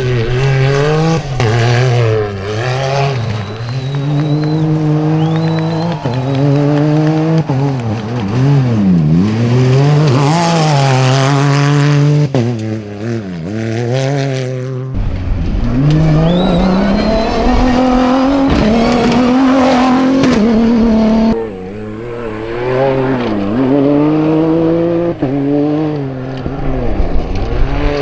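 Off-road rally cars and side-by-side buggies racing at full throttle, one after another. The engine pitch climbs and drops again and again through gear changes, and the sound switches abruptly from one vehicle to the next.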